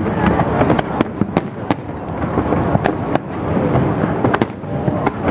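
Aerial fireworks bursting in quick succession: sharp bangs about two a second over a dense, continuous crackle.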